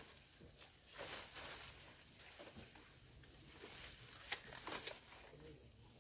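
Goat feeding on a heap of fresh leafy fodder: faint rustling and tearing of leaves, with a few sharp snaps about four seconds in.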